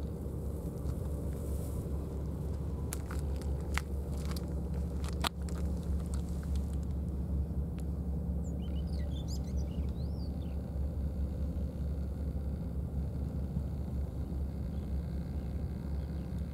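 Steady low outdoor rumble, with a few sharp clicks in the first six seconds and a brief run of high chirps about nine seconds in.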